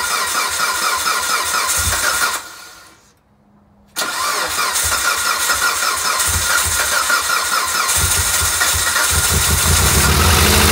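The starter cranks the freshly rebuilt Mitsubishi Lancer Evolution VIII's turbocharged 4G63 four-cylinder engine in a fast, even rhythm. It stops for about a second and a half, then cranks again. Near the end the engine catches, making its first start after the rebuild, and settles into steady running.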